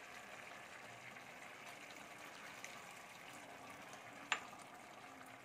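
Hot water being poured into a pressure cooker of mutton, rice and potatoes for biryani, a faint steady wet pouring with some sizzle from the hot pot. A single sharp clink about four seconds in.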